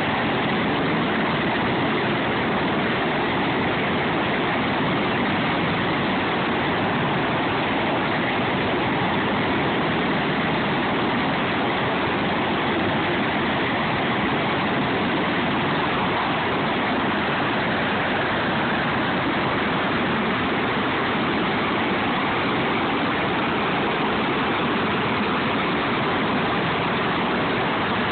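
Sikorsky MH-53E helicopters running on the ground, their turbines and rotors making a steady, even noise that does not change in level.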